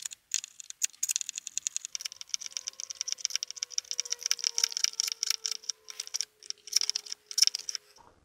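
Air bubbles crackling and fizzing out of the bench-bleed tubes into the brake fluid in the master cylinder's reservoir as the piston is pushed in: a dense run of tiny rapid clicks. A faint steady tone sounds under it from about two seconds in.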